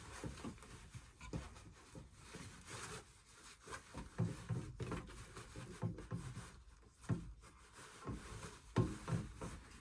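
Handling noise from fitting parts of a large plastic animatronic together: irregular rubbing and scraping with scattered soft knocks and bumps.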